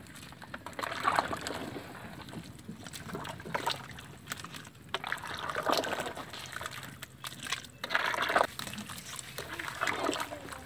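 Thin chicken curry sloshing and splashing in a metal pot as a ladle stirs it, in about five swirling strokes roughly two seconds apart, with light clicks of the ladle among them.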